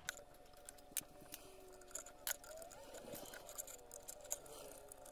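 Faint, scattered small metal clicks and taps as hands work loose and handle a servo spindle motor and its mounting on a metal lathe frame, with a faint steady hum underneath.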